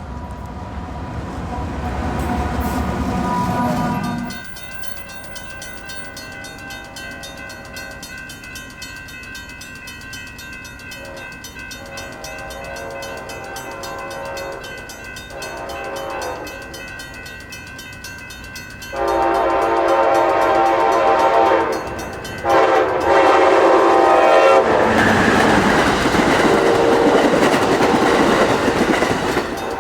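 A low train rumble that cuts off about four seconds in. Then a locomotive's Nathan K5LA five-chime air horn sounds long chord blasts, softer at first and loud from about two-thirds of the way through, with a short break. Near the end the noise of the passing train joins in.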